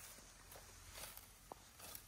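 Faint rustling of fenugreek (methi) plants being picked by hand, a few soft crackles of leaves and stems.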